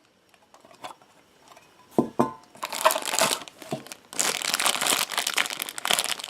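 Near silence at first, then about two seconds in a few sharp clicks with a short ring as the Funko Mystery Mini tin is handled and opened, followed by packaging crinkling and rustling that grows dense and steady over the last two seconds.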